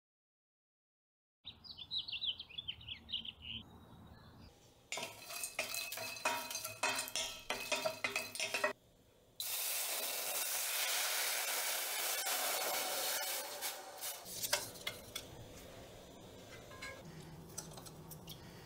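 A couple of seconds of bird chirping, then clinks and clatters of kitchen utensils against metal. About nine seconds in, a steady loud hiss starts from a stainless steel pot holding dried anchovies and dried shrimp, then settles into a quieter hiss with scattered light clicks.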